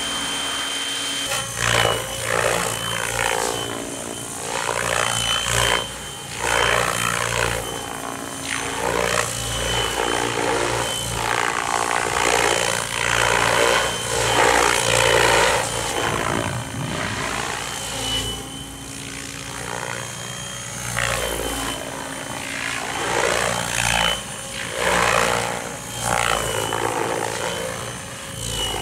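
Mikado Logo 600SE electric RC helicopter in flight, its rotor blades buzzing over a high steady motor whine. The sound repeatedly swells and fades and sweeps up and down in pitch as the helicopter manoeuvres and passes.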